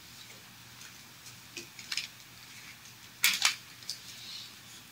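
A few faint, short clicks and taps in a quiet room, the loudest a quick pair a little past three seconds in.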